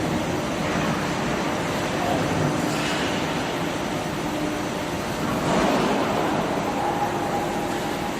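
Steel-coil slitting line running: a steady mechanical noise with faint steady hum tones and slight swells in level, no distinct impacts.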